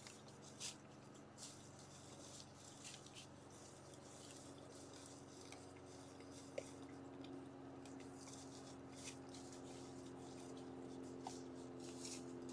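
Faint rustling and small crunches of white-tailed deer feeding in dry leaf litter, with one sharper tick about halfway through, over a steady low hum that grows a little louder partway through.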